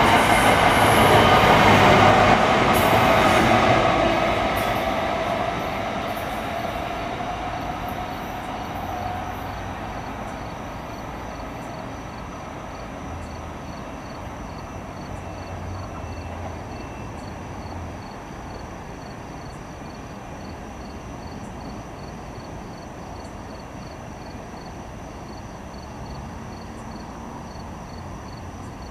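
GE Arrow III electric multiple-unit commuter train pulling away, its wheels and rail noise loud for the first few seconds and then fading into the distance over about ten seconds.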